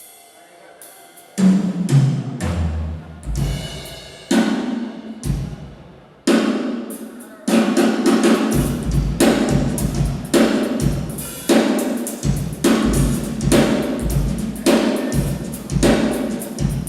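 Drum kit played solo. It opens with a cymbal and a fill that steps down through the toms, then a few loud separate hits, and from about halfway it settles into a steady beat of kick drum, snare and cymbals.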